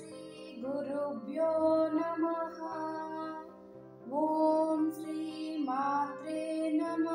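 Devotional song: a woman singing slow, held phrases over a steady drone, with short breaks between phrases.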